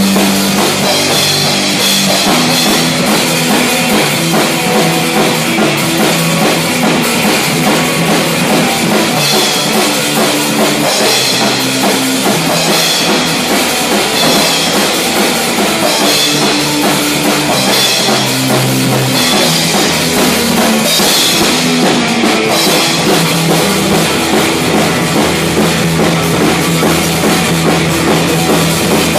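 A robot rock band playing a fast, loud heavy rock song, driven by a drum kit with steady bass drum and cymbals.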